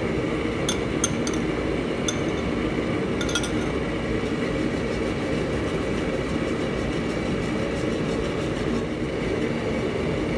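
Wire whisk clinking and scraping against a stainless steel wok as cream is whisked into soup: a few sharp clinks in the first few seconds, then quicker, lighter ticking. A steady low roar runs underneath.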